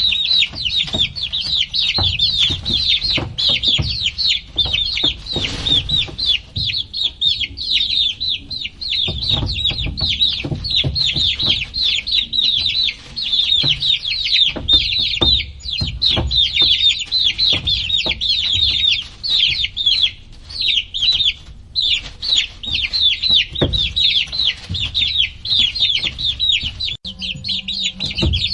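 A crowd of baby chicks peeping nonstop, many high, short, falling peeps overlapping one another, with low knocks and bumps underneath.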